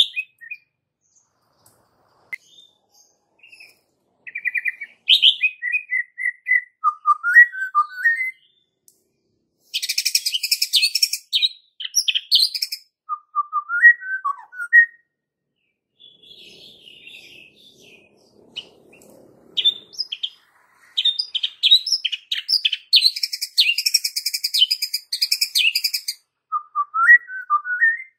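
White-rumped shama singing in bursts of short whistled and warbled phrases, broken by two long stretches of rapid, rattling trills, about ten seconds in and again from about twenty-one seconds.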